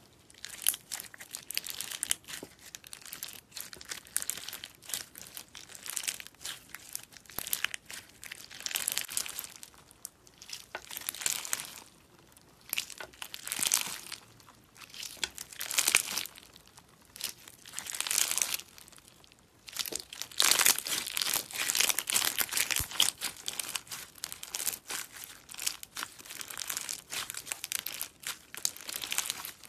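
Clear slime packed with pink and pearl-white beads being stretched and squeezed by hand, giving off crinkly crackling in bursts every second or two. The crackling runs almost without a break from about two-thirds of the way in.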